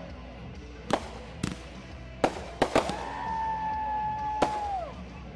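Fireworks going off: six sharp bangs, several close together in the middle, over a song playing underneath. Near the middle a high tone is held for about two seconds, then falls away.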